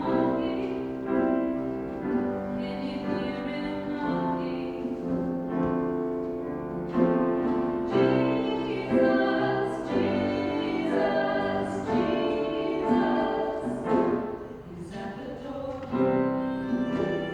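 Gospel choir singing with piano accompaniment.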